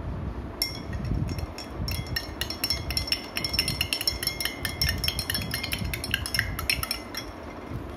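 A metal spoon stirring a drink in a glass mug, clinking against the glass several times a second with a ringing tone; the clinking starts about half a second in and stops about a second before the end.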